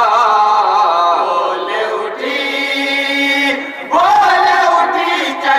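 A group of men singing an Urdu devotional song in chorus, drawing out long held notes. A new line begins with a rising phrase about four seconds in.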